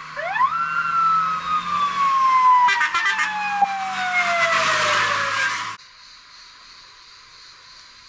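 Fire truck siren winding up fast, then a long, slowly falling wail over the truck's engine running; it cuts off abruptly about six seconds in.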